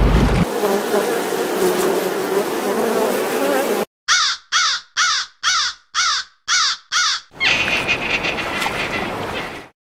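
An animal call repeated seven times in quick succession, about two short calls a second, between stretches of steady hissing noise; the sound cuts off abruptly near the end.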